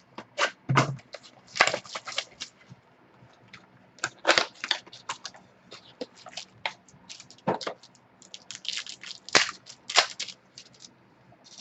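Trading card packs being opened and the cards handled: irregular crinkling, crackling and sharp clicks of wrappers and card stock, in quick clusters with short pauses between.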